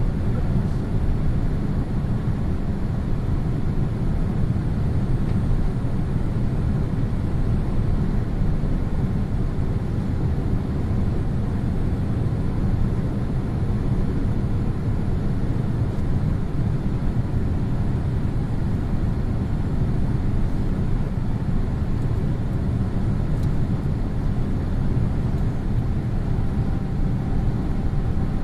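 Steady low rumble inside the cabin of a Boeing 787-8 in flight, airflow and engines. A faint steady hum rides on it, and a second, higher hum joins near the end.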